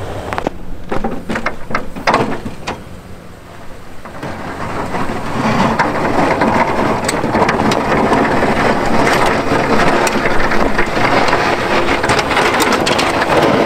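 Snowplow blade on a Chevrolet Silverado pickup scraping the frozen ground and pushing hard-packed snow, over the truck's engine. A dense crunching hiss swells from about five seconds in as the blade drives the snow into the pile.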